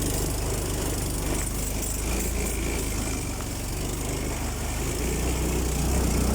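Small motorcycle engine running steadily at low revs, getting a little louder about five seconds in.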